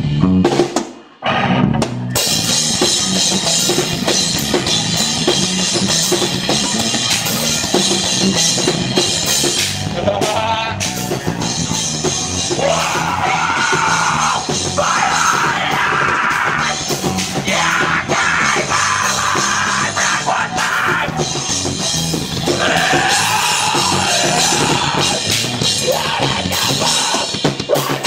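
Live heavy rock band playing loud with a drum kit. The band stops briefly about a second in, then crashes back in. Yelled vocals come in over it from about ten seconds in.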